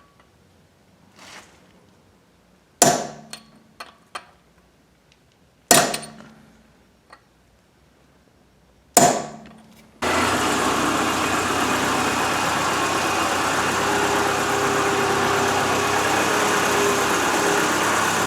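Three sharp metallic knocks, each ringing briefly, about three seconds apart, with a few lighter clicks between them. About ten seconds in, a steady loud rush of vehicle running noise with a faint hum starts and holds.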